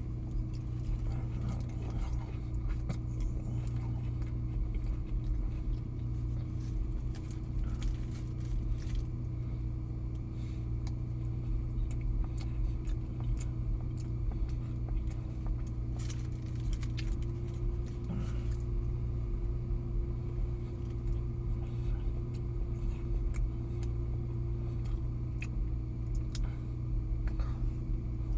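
A steady low mechanical hum with a constant tone that rises slightly for several seconds past the middle, overlaid with scattered small clicks and rustles.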